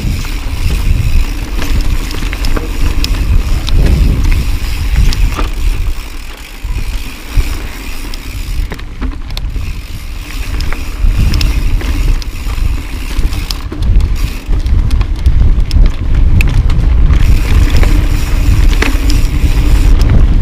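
2013 Tallboy LTc full-suspension mountain bike descending a rocky dirt trail at speed: wind rushes over the microphone while the tyres roll over dirt and rock, with many short clicks and knocks from the bike going over rocks. The rush eases briefly around six seconds in.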